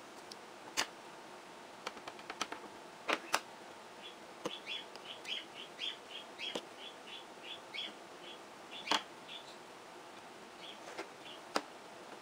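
Pet birds chirping, with a quick run of short high chirps, about four a second, through the middle. Sharp clicks and taps come between them, some louder than the chirps, from the plastic perler-bead pegboard being pressed onto paper and lifted.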